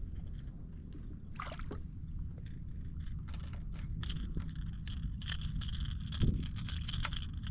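Small splashes, drips and scrapes of water and a wet fish being handled aboard a kayak over a steady low rumble. The clicks and ticks grow denser from about a third of the way in. A faint steady high hiss joins about halfway through.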